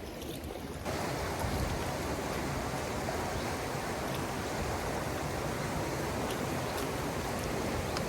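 Steady rushing of stream water. It gets suddenly louder about a second in and then holds even, with a few faint ticks.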